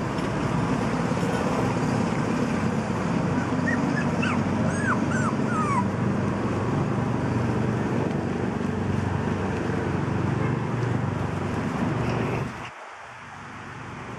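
About five short, high yips from 45-day-old toy poodle puppies, each falling in pitch, between about four and six seconds in. Steady background noise runs under them and drops away abruptly near the end.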